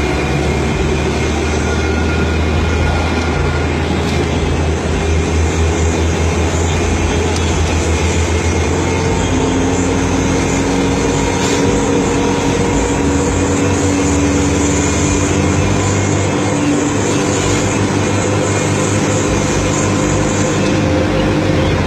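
A bus's diesel engine running with steady road noise, a low continuous drone whose engine note shifts about nine seconds in.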